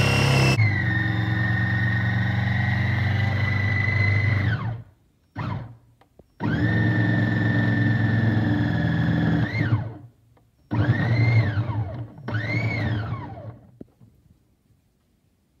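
KitchenAid Artisan Cook Processor's food processor attachment running and shredding a block of cheese, a steady motor whine over a deep hum. The motor stops and spins down about four seconds in, blips briefly, and runs again for about three seconds. It ends with two short pulses, each rising and then falling in pitch.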